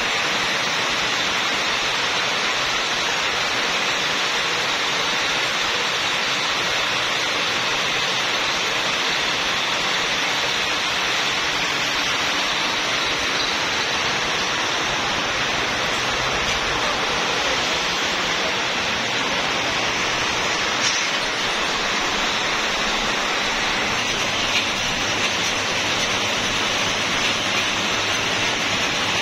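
Steady whirring hiss of belt-driven twine-winding machines running in a cord workshop, unchanging in level, with a couple of faint clicks in the second half.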